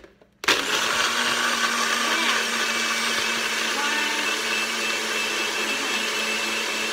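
NutriBullet personal blender running, blending ice cubes, water and shake powder in its cup. It starts suddenly about half a second in and runs steadily, a loud whir over a steady motor hum.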